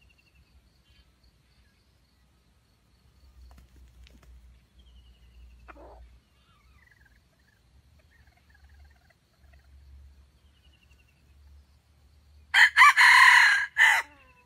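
Red junglefowl rooster crowing once, loud and about a second and a half long in a few broken phrases, near the end. Before it, faint high chirps of small birds.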